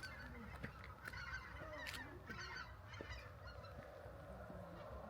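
A large flock of Baikal teal calling together: many overlapping short calls blend into a dense, continuous chorus over a low steady rumble.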